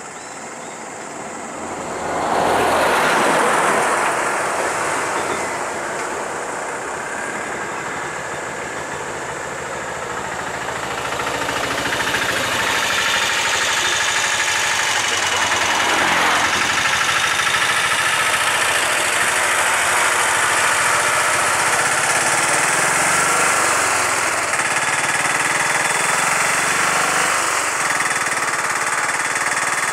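Road traffic: vehicle engines swell as vehicles drive past close by, once about two seconds in and again about halfway. Through the second half the steady engine of a Piaggio Ape three-wheeler runs just in front.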